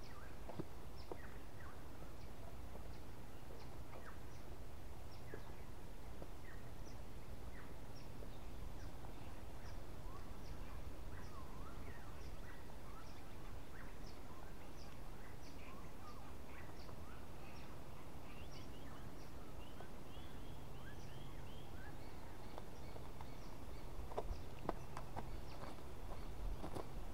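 Several small birds calling, short chirps repeating every second or so, over a steady low background noise. Near the end, a few footsteps crunch on dry leaf litter and twigs.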